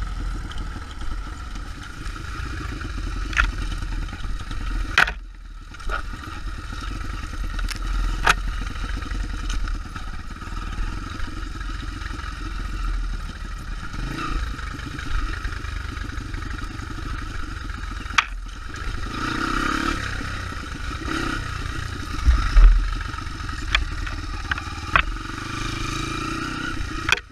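Single-cylinder four-stroke Honda trail bike engine running while the bike is ridden over a rough dirt trail, with sharp knocks and rattles from the bike over bumps. The loudest knocks come near the end, and there is a brief dip about five seconds in.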